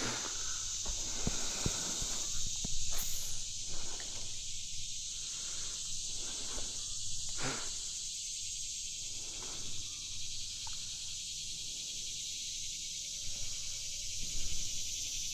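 Steady high-pitched chorus of insects, with faint scattered rustles and clicks.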